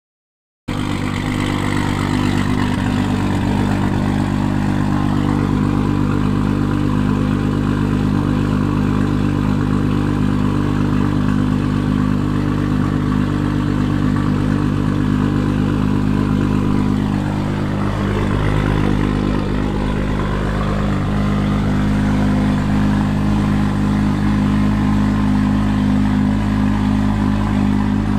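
Toyota Supra MKIV's single-turbo 2JZ-GTE inline-six, fitted with GSC S2 camshafts, idling steadily through its exhaust. The sound cuts in abruptly just under a second in.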